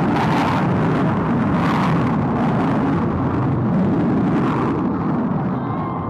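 Aircraft engine noise from an air force flying display, loud and steady, its high hiss thinning out toward the end.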